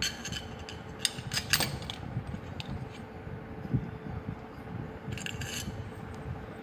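Metal parts clinking and scraping as a steel shaft with its bearing housing is fitted into a homemade stator built from a cutting blade with hex standoffs and screws. Short clusters of clinks come at the start, about a second in and about five seconds in, over a faint steady hum.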